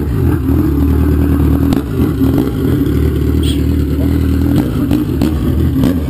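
Kawasaki Z1000 inline-four running steadily at low revs through its open exhaust with the baffle removed, loud, with irregular crackles from the pipe.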